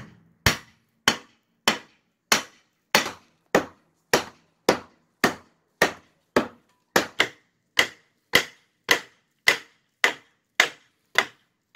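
Claw hammer striking a block of wood screwed to a porch deck, about twenty sharp, evenly spaced blows a little under two a second. The blows tap a cut tongue-and-groove deck board out of its interlock.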